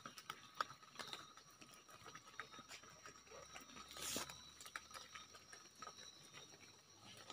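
Near silence with faint scattered clicks and light rustling from handling the phone and leaf litter. A brief, louder rustle comes about four seconds in as the phone swings, over faint steady high tones.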